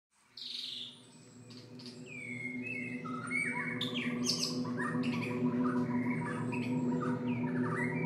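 Several birds chirping and calling, with short whistled glides and trills, over a steady low musical drone that fades in and slowly swells.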